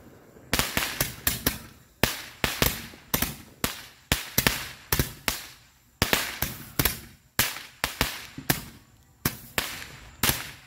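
Consumer aerial fireworks bursting overhead: a fast, uneven string of sharp bangs, about three a second, with a few brief gaps.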